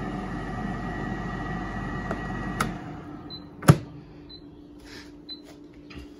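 Pampered Chef air fryer's fan running with a steady hum, winding off about three seconds in after the cook cycle is cancelled. A sharp click follows just under a second later and is the loudest sound.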